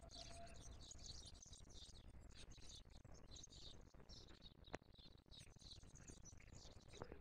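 Faint birdsong: many short, high chirps from several small birds overlapping, over a low background rumble, with two soft clicks, one past the middle and one near the end.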